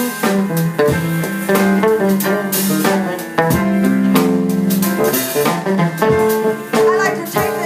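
Live band playing a jazzy instrumental passage on piano and electric guitar, with steady held notes.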